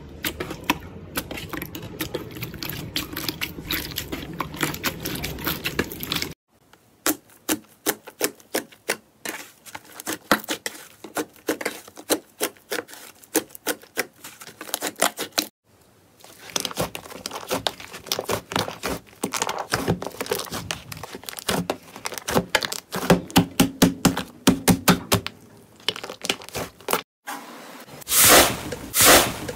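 Hands squishing and poking slime, making rapid sharp wet clicks and pops, broken by two brief silences. Near the end a hand presses into slime with a crunchy granular crust, giving the loudest crackles.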